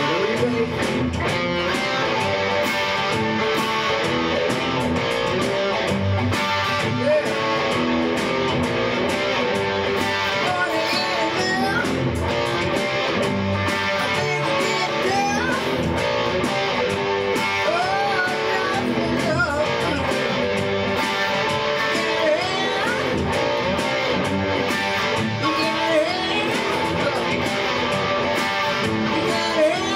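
Rock music led by electric guitar, with bent, gliding lead notes over a steady beat.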